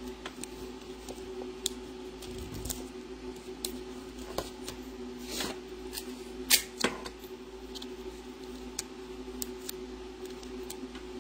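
Small clicks, taps and crinkles of paper, plastic bendy straws and tape being handled, scattered irregularly, with a sharper pair of clicks about six and a half seconds in, over a steady low hum.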